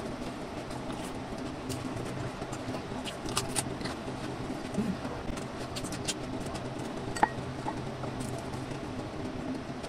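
Close-miked eating sounds: chewing fried food, with scattered small crunches and mouth clicks and one sharper click about seven seconds in, over a steady low background hum.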